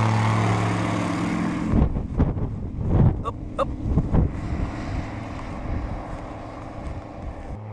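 Just Aircraft SuperSTOL's engine and propeller running close by as it taxis, a steady drone. About two seconds in it changes abruptly to wind buffeting the microphone, with a fainter steady engine hum from the plane taking off in the distance.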